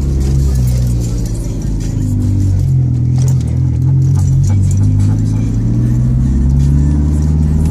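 Car engine running under way, heard from inside the cabin, its note shifting in pitch midway as the car drives; music plays alongside.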